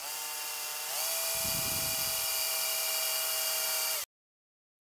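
Cordless drill spinning a small pilot bit into a metal amplifier chassis: a steady motor whine that steps up in pitch about a second in, then cuts off suddenly near the end.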